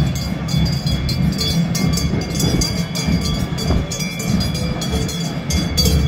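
A mass of large Swiss cowbells (Trychlen) clanging continuously as their carriers march, with steady metallic ringing tones above a dense low clatter.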